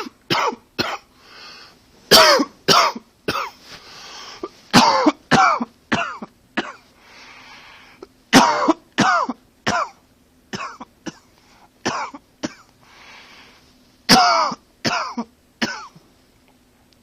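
A man coughing in repeated fits: clusters of several sharp coughs in quick succession, about six fits, with softer breaths between them.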